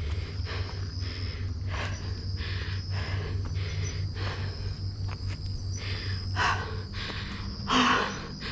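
A runner's heavy, rhythmic panting, about two breaths a second, with one louder gasping breath near the end.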